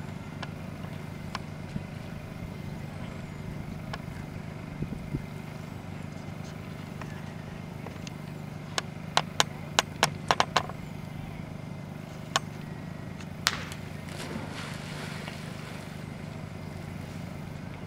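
A run of sharp knocks from the small rowboat about nine to eleven seconds in. A Newfoundland dog then jumps from the boat into the lake with a louder knock and a splash, over a steady low hum.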